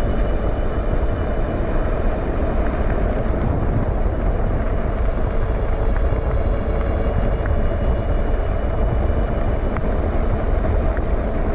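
Fat-tire e-bike cruising at about 25 mph on throttle only: a steady low rumble of wind and tyres on pavement, with a faint steady whine from the 1000 W hub motor.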